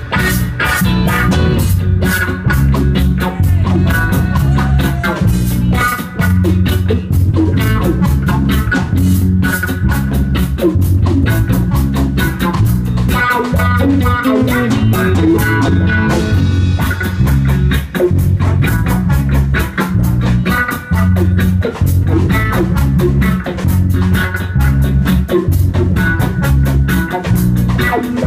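Live reggae band playing an instrumental passage with no singing: electric bass line and drum kit under electric and archtop guitars, with trombone.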